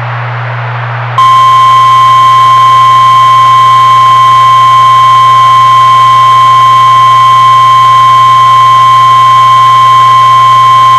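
Emergency Alert System attention signal: about a second of static hiss with a low hum, then a long, steady, single-pitched alert tone that holds unchanged for about ten seconds and cuts off abruptly at the end.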